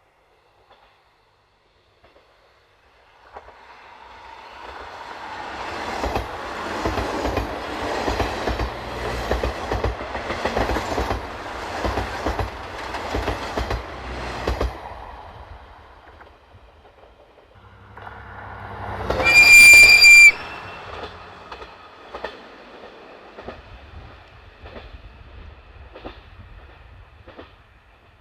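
Diesel railcar passing, its wheels clicking in quick rhythm over the rail joints as it swells and fades away. A few seconds later another train approaches and sounds one steady high horn note for about a second, which cuts off sharply; its wheel clicks then fade into the distance.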